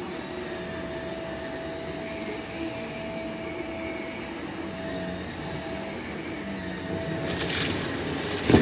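Cordless stick vacuum running with a steady hum and thin whine. About seven seconds in, its head reaches dry petal debris on a shag rug and starts sucking it up, with a crackling rattle of debris through the machine and one sharp crack near the end.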